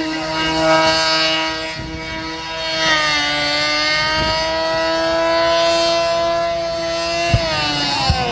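Race car engine held at high, steady revs. The pitch dips briefly a couple of seconds in, then falls near the end, with two sharp pops as it comes off the revs.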